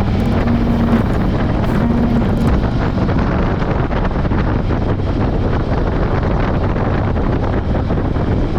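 Motorcycle engine running at a steady cruise under heavy wind noise on the microphone.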